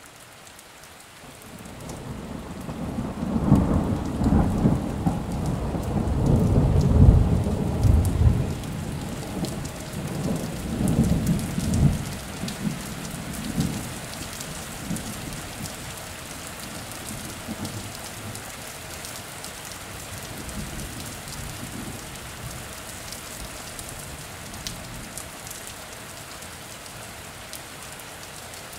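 Steady rain falling with scattered drip ticks, under a long rumble of thunder that swells a couple of seconds in, is loudest for several seconds and dies away about halfway through, leaving the rain alone.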